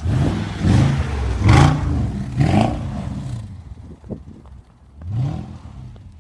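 Mercedes-Benz W211 E500's V8 engine revving hard in four rising bursts, with a short lull before the last one.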